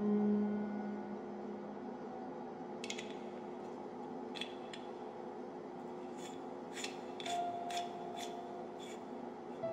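About nine sharp, irregular clicks from a small object being worked in the hands, starting about three seconds in, over a steady low drone.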